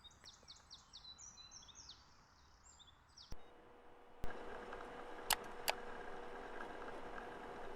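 Birds chirping with short, high, falling calls; about three seconds in, this cuts to a steady computer hum, with a few sharp clicks like a mouse being clicked.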